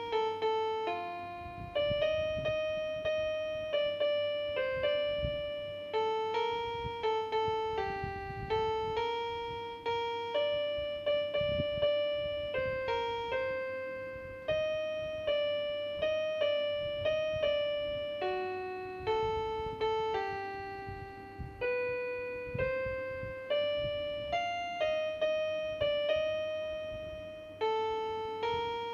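Portable electronic keyboard on a piano voice, playing a slow, easy melody one note after another, each note struck and left to fade.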